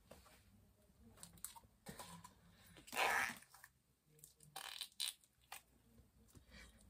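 Slime being squished and worked by hand, giving faint, irregular squelching with one louder squelch about three seconds in.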